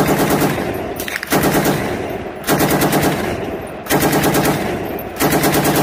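Machine-gun fire in five bursts of about a second each, each a rapid rattle of shots, separated by short gaps.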